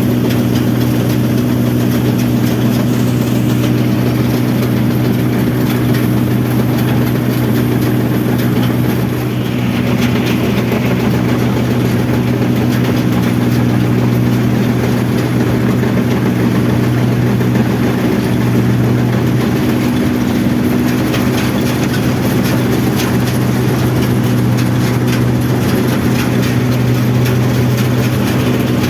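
Rice combine harvester's diesel engine and machinery running steadily: a continuous loud drone with a strong low hum.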